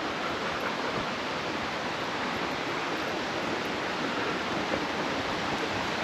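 Steady rush of running water from a brook, an even hiss with no separate splashes.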